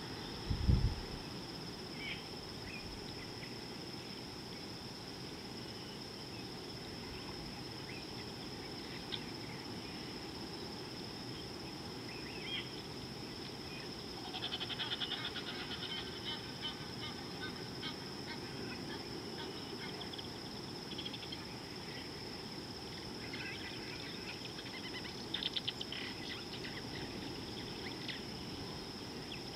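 African bush ambience: a steady high insect drone over a soft background hiss, with scattered bird chirps and two quick bursts of trilling bird calls, one about halfway through and one near the end. A brief low thump sounds just after the start.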